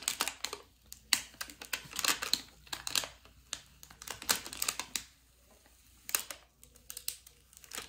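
Clear plastic transfer tape being peeled off a vinyl decal on a sign, a run of dense crackling clicks as the tape lifts away, thinning out for a moment about five seconds in.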